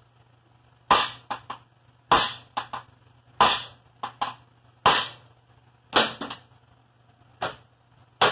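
Hammer tapping on a crusty, seized brake band on a Gibson tractor's brake drum to loosen it. About seven sharp metal strikes, roughly one every second and a quarter, most followed by one or two lighter taps.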